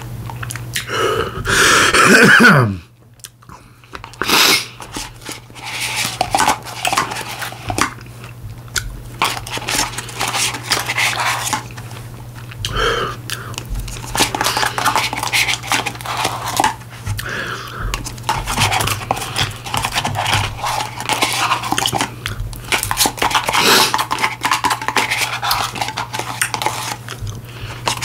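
Close-miked chewing and mouth smacking of someone eating Dairy Queen Blizzard ice cream, with small clicks of a spoon. About two seconds in there is a louder mouth sound that falls in pitch.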